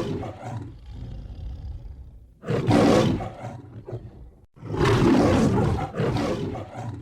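A large predator roaring: long, deep, harsh roars, one fading out at the start, another about two and a half seconds in and a third from about five seconds in, with quieter rumbling between them.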